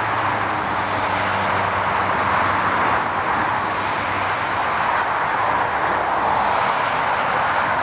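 Steady noise of fast motorway traffic passing close by: a continuous rush of tyres on the road with a low engine hum underneath.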